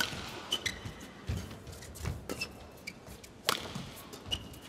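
Badminton rally: rackets strike the shuttlecock back and forth in sharp cracks, the loudest right at the start and about three and a half seconds in, with brief squeaks of court shoes on the floor between hits.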